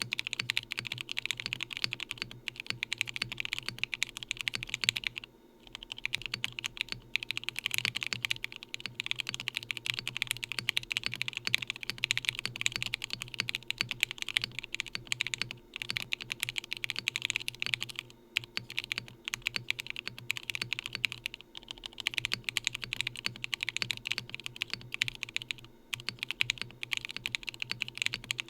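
Fast continuous typing on a June by Hibi mechanical keyboard: SOTC switches on an FR4 plate, silicone tray mount, no dampening, Osume Mochi keycaps. The keystrokes come in a dense stream, with brief pauses about five seconds in and a few more times later.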